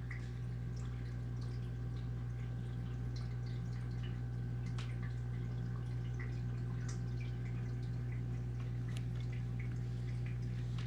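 Aquarium water trickling and dripping, likely from the tank's running filter: scattered small drips and splashes over a steady low hum.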